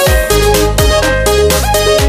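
Background electronic dance music with a steady kick-drum beat and synth notes.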